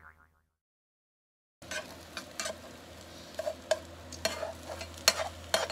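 A fading edited-in sound effect gives way to dead silence for about a second and a half. Then food sizzles in a frying pan while a metal slotted turner clicks and scrapes against the pan, shaping a rolled tonpeiyaki omelette.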